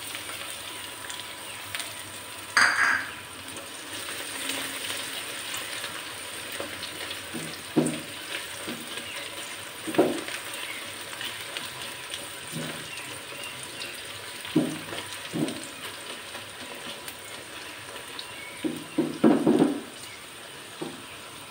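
Sliced onions with crushed garlic and ginger sizzling steadily in hot oil in a non-stick kadai, frying towards light brown. A silicone spatula stirring them knocks and scrapes against the pan now and then, with a quick run of strokes near the end.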